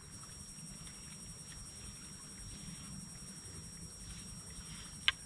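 Quiet outdoor background with a low steady rumble and one sharp click about five seconds in.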